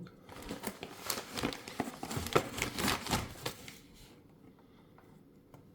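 Packaging crinkling and rustling as it is handled, in dense irregular crackles that die away about two thirds of the way through.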